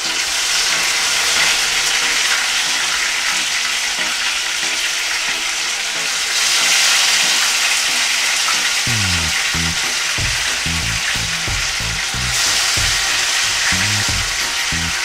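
Barracuda steaks sizzling in hot oil in a frying pan: a steady hiss that swells louder twice. Background music with a bass beat comes in about nine seconds in.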